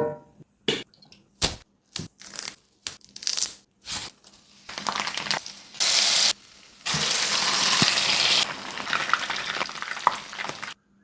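Kitchen cooking sounds. A run of sharp knocks and clinks for about four seconds, then loud hissing like sizzling or running water, broken into several abrupt cuts, which stops sharply just before the end.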